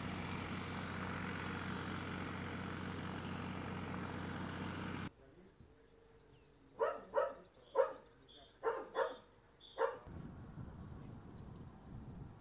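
A steady motor hum for about five seconds that cuts off abruptly, then a dog barking six times in quick groups.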